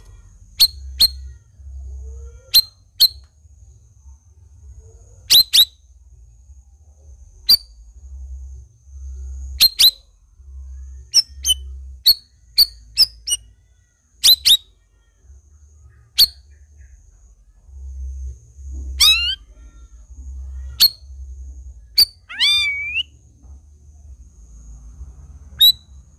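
Caged cucak rawis, a streaked bulbul, calling in sharp, short chirps that each sweep quickly down in pitch, spaced irregularly with some in quick pairs. About 22 seconds in it gives a longer, falling warbled phrase.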